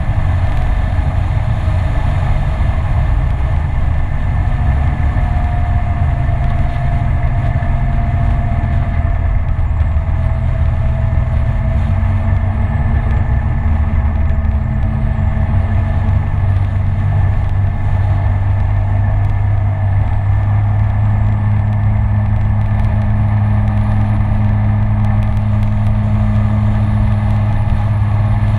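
Kymco Citycom S 300i scooter's single-cylinder engine running steadily at cruising speed, with low rushing road and wind noise. The engine note holds steady and shifts only slightly in pitch as the speed changes.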